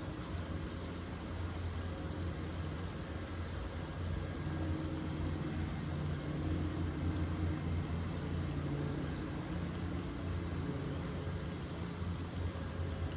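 Steady low rumble of distant road traffic, with an engine hum growing louder through the middle and easing off again.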